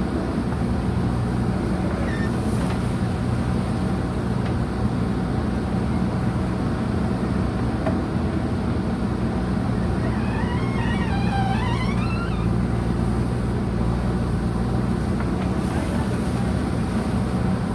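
Diesel engine of a JCB 3DX backhoe loader running steadily under work. A short warbling high sound rises and falls about ten seconds in.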